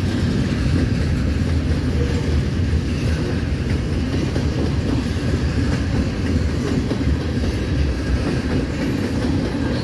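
Freight cars of a CSX mixed manifest train rolling past: a steady, loud rumble of steel wheels on the rails.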